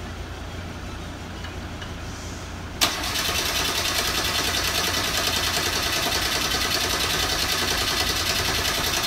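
Reliant Robin's small four-cylinder engine firing up: it catches suddenly about three seconds in and keeps running steadily. The car is starting again after being left for scrap.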